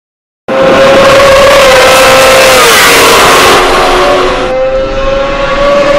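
BMW S1000RR inline-four engine running loud at high revs, starting abruptly about half a second in; the pitch drops around the middle as the throttle eases, then climbs again as it accelerates.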